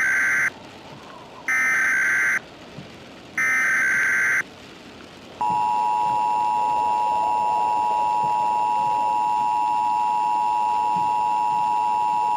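Emergency Alert System SAME header: three short bursts of rasping digital data tones, the first already under way. About a second later comes the EAS two-tone attention signal (853 and 960 Hz), held steady, announcing an emergency alert broadcast.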